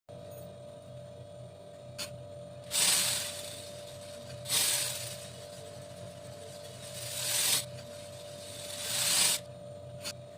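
Small beads being poured, in four separate pours, each a rush of sound that builds and then stops. A faint steady hum sits underneath, with a light click about two seconds in and another near the end.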